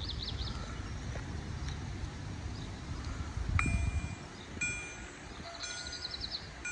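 Level-crossing warning bell starting a little over halfway in: an electronic chime ringing about once a second, the signal that the barriers are closing for an approaching train. Before it, a car drives up with a low rumble that peaks just as the bell starts; a bird chirps briefly near the start and near the end.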